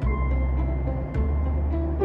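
Background music: a melody of short pitched notes over a deep, sustained bass that shifts about a second in.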